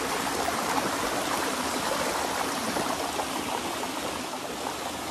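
Mountain stream cascading over rocks into pools: a steady rush of falling water.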